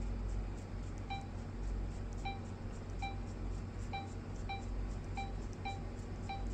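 Canon 5540 copier's touch panel giving a short beep at each tap on its on-screen keyboard, about eight identical beeps at uneven intervals of half a second to a second, over a steady low hum.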